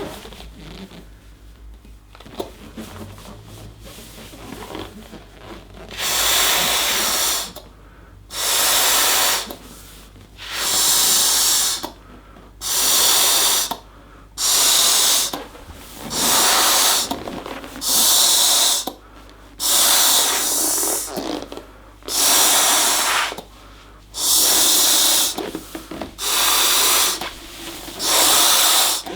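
Balloon being blown up: about a dozen rushing puffs of air, one every two seconds or so, starting about six seconds in, with faint rubber handling sounds before them.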